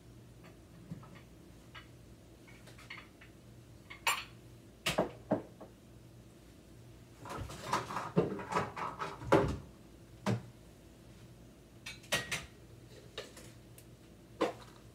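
Dishes and a cupboard being handled while a serving bowl is fetched: scattered clinks and knocks, with a dense run of them around the middle and a few single knocks near the end.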